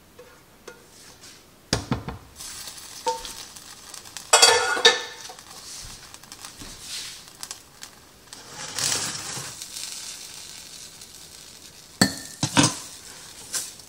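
Honey garlic chicken spooned out of a hot skillet onto fried rice: a metal utensil clanks and scrapes against the pan, with some sizzling in between. Sharp clanks come about two seconds in, a loud cluster around four to five seconds, and two more near the end.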